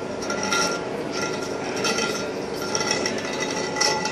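Metal ringing and clinking in short repeated bursts, high-pitched, from work on a metal wheel rim.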